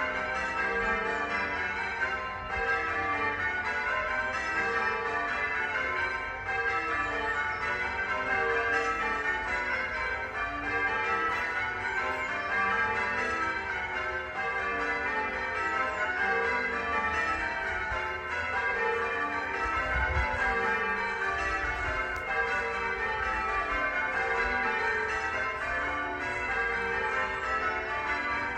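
Church bells ringing continuously, several bells struck in quick succession with their tones overlapping and ringing on.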